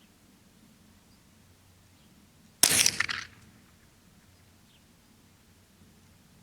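A single shot from a Marlin Model 60 semi-automatic .22 Long Rifle: one sharp crack about two and a half seconds in that dies away within about half a second.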